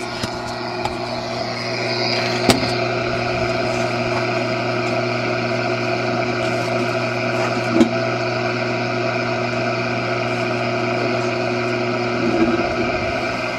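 Shortwave radio receiver hissing with static and steady droning tones from a weak, noisy signal, with a couple of short clicks; the sound drops off near the end.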